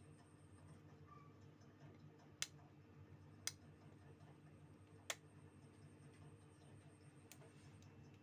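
Near silence with a steady low hum, broken by three sharp clicks about a second apart and a fainter fourth click near the end.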